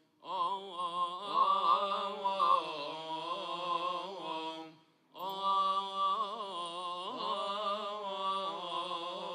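A solo male voice chanting Coptic liturgical melody, drawing syllables out in long, wavering melismatic phrases, with a short breath pause about halfway.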